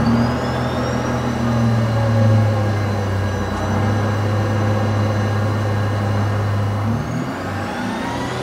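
Tracked all-terrain vehicle running, with a steady low engine drone and a thin whine that rises in pitch about a second in and again near the end.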